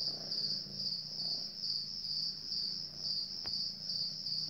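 Cricket chirping steadily, a high pulsing trill repeating about twice a second, with a faint low hum beneath.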